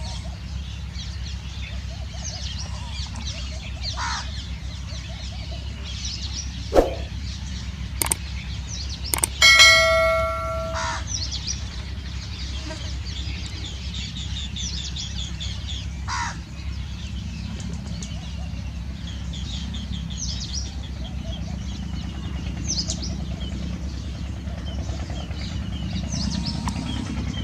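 House sparrows chirping continuously, a busy chatter of many short calls, over a steady low rumble. A few sharp clicks come about seven to nine seconds in, followed by a ringing, bell-like tone held for about a second and a half.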